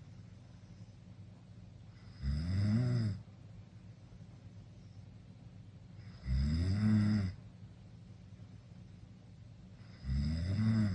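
A sleeping teenager snoring with mouth wide open: three pitched snores about a second long, roughly every four seconds, the last one at the very end.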